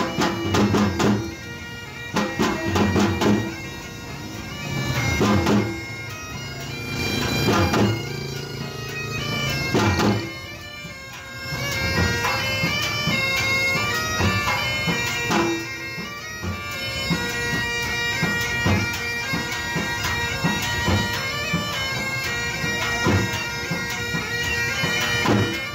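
Reedy wind-instrument music: a melody held over a steady drone, with heavy drum beats through the first ten seconds or so.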